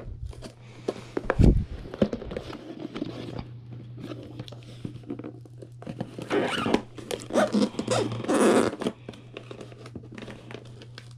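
Scissors snipping through packing tape and cardboard on a shipping box, with a thump about a second and a half in. In the second half, packing tape is ripped from the cardboard in three tearing pulls.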